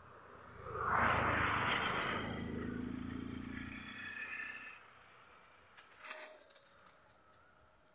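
A motor vehicle passing close by, its engine noise swelling about a second in and fading away over the next four seconds. A few short scrapes and clicks follow.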